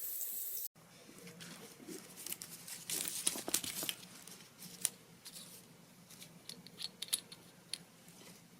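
Water spraying from a handheld shower head, cut off abruptly under a second in. Faint scattered clicks and crackles follow, busiest around the middle.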